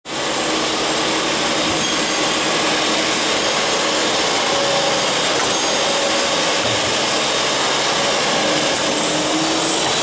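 Steady noise of machinery running, even and unbroken, with a faint low hum; no crimping strokes stand out.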